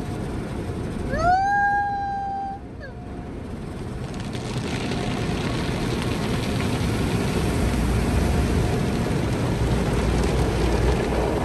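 Automatic car wash running over the car, heard from inside the cabin: a steady wash of spraying water and scrubbing cloth strips against the glass and body that grows louder from about four seconds in. About a second in, a short high-pitched sound glides up and holds for about a second.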